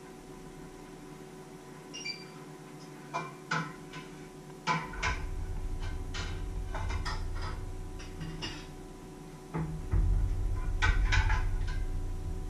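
Kitchen clatter of pots and utensils being handled at the stove: a run of sharp clicks and knocks. Under it is a low rumble that starts about five seconds in, drops out briefly near the end and comes back louder.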